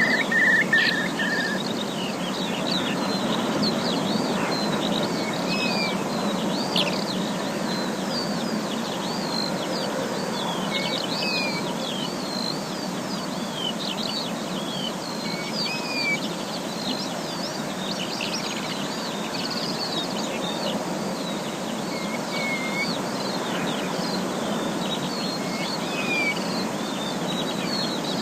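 Forest ambience: many birds chirping with short, quick calls over a steady rushing background noise. There is a brief trill in the first second or so.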